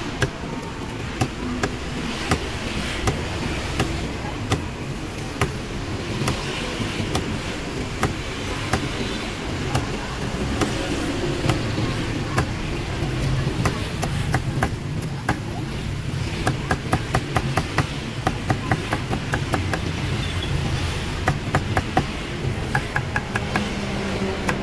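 Cleaver chopping grilled pork on a thick round wooden chopping board: single chops spaced out at first, then quick runs of chops, several a second, in the second half as the meat is chopped fine. A steady hum of street traffic lies underneath.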